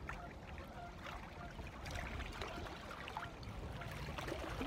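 Faint lake water lapping, with light scattered ticks and rustles.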